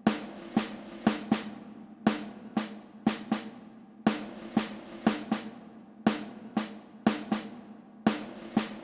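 Background music: a drum beat with no melody to speak of, a short pattern of hits repeating about every two seconds.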